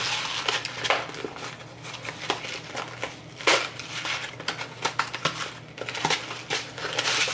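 Crinkling and crunching of packaging being handled, with scattered small clicks and knocks.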